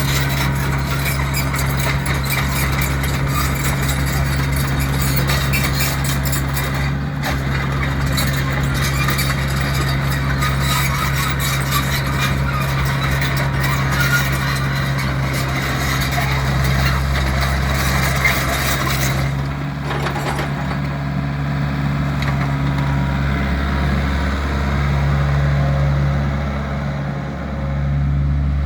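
2008 Hyundai R60-7 excavator's diesel engine running steadily. A busy rattling and clattering rides over it for the first two-thirds, then drops away, leaving the engine hum.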